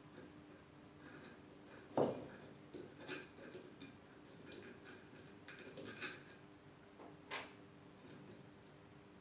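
Scattered light clicks and metallic knocks, like parts or tools being handled, with one louder knock about two seconds in and smaller ones near three, six and seven seconds.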